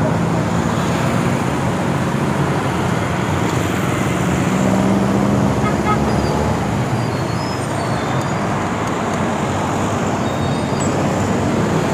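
Road traffic close by: motorcycles and other motor vehicles running past over a steady rush of road noise, with one engine hum swelling about four to six seconds in.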